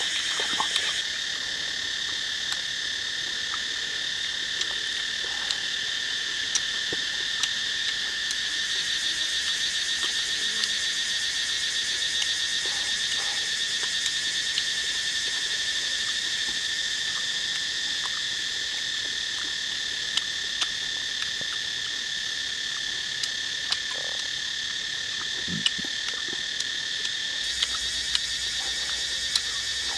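Steady high-pitched chorus of calling insects that holds the same two high pitches without a break. Light sharp clicks of eating crunchy food come and go, more of them in the second half.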